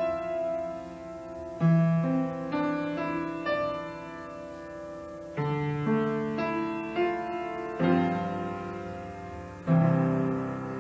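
Piano playing slow, quiet chords, each struck chord ringing and fading before the next comes in every two to four seconds.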